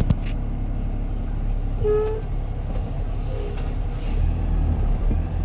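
Concrete mixer truck's diesel engine running, its low rumble rising about four seconds in as it works to back the truck out. A click at the start and a short beep about two seconds in.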